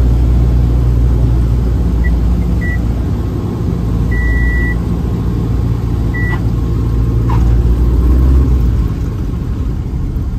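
American Champion Super Decathlon's four-cylinder Lycoming engine and propeller running, heard from inside the cockpit as a steady low rumble. A few short high beeps sound about two, three and six seconds in, with a longer one near the middle.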